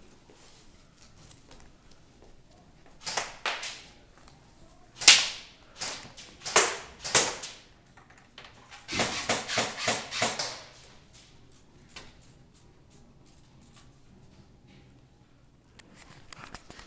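Airsoft guns firing: a few separate shots between about three and seven seconds in, the loudest about five seconds in, then a quick string of shots about nine seconds in.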